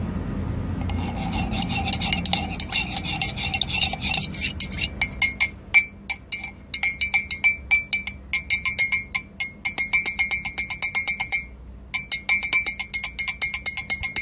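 ASMR clicking and tapping made close up at a microphone by hand and mouth: first a wavering high tone for about four seconds, then rapid sharp clicks with a glassy ring, several a second, pausing briefly near the end.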